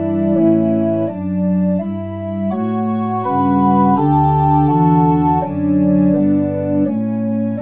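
Synthetic pipe organ, registered with Montre 8' and Gedackt 4' stops, playing sustained chords that change about twice a second.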